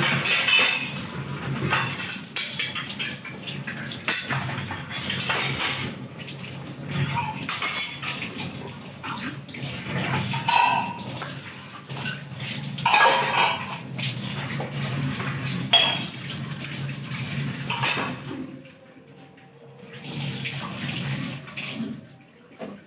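Tap water running into a kitchen sink while stainless-steel utensils are scrubbed and rinsed, with metal bowls and pots clattering against each other. The running water and clatter drop away near the end.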